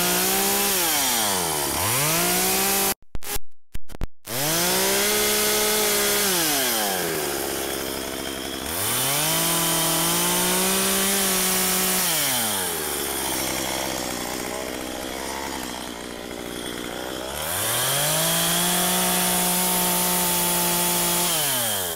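Stihl chainsaw cutting into wood, revving up to full throttle and dropping back to idle again and again as it makes short carving cuts. The sound breaks off briefly about three seconds in.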